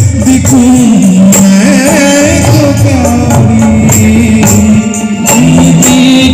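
Loud live Indian band music through a PA sound system: a dhol and other hand percussion with a jingling tambourine-like beat, keyboard and a sung melody, with a brief dip about five seconds in.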